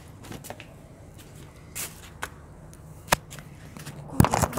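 Handling noise from a phone held against clothing: cloth rubbing and scattered clicks, a sharp click about three seconds in, and a quick cluster of knocks near the end as the phone is moved into place.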